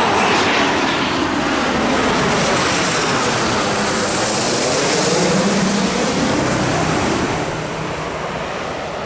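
Gulfstream G650 business jet's twin turbofan engines running loud as the jet goes by on landing, with a sweeping pitch in the middle, then fading about seven seconds in.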